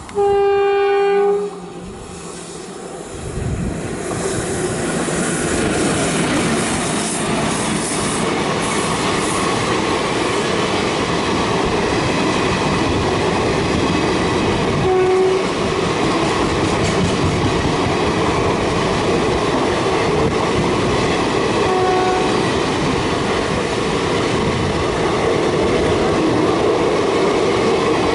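An Indian Railways WAP4 electric locomotive's horn sounds once, loud, for about a second. Then an express train passes at speed, its coaches rattling and clattering steadily over the rail joints. Two short horn notes sound later on.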